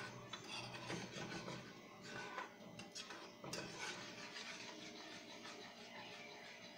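A metal spoon stirring a sauce in a small saucepan, scraping and lightly clinking against the pan, with the strokes busiest in the first half.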